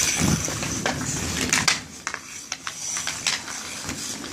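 Hockey sticks clacking against the ice and a puck, with skate blades scraping over the rink ice. Irregular sharp clicks and taps, the loudest about one and a half seconds in.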